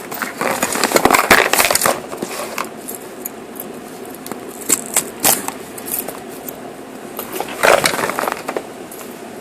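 A cardboard shipping box being handled and opened: bursts of rustling and scraping with sharp clicks and knocks, the loudest about a second in and again near the end.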